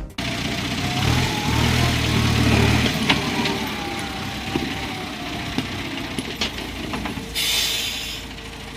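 Heavy vehicle engine running, with a faint whine gliding in pitch and a few light clicks; a short burst of hiss near the end.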